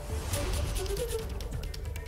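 Background music with a drum beat and rapid percussive hits.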